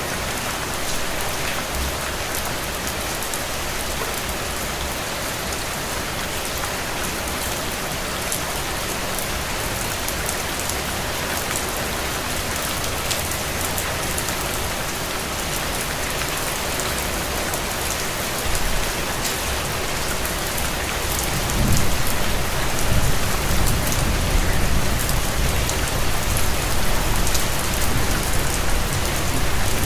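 Steady rain falling on a window, an even hiss with fine drop ticks. About two-thirds of the way through a low rumble comes in under it and the whole sound grows a little louder.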